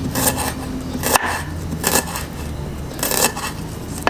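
Knife slicing shallots on a cutting board: a handful of short, irregular cutting and scraping strokes, one a sharper knock, over a steady low hum.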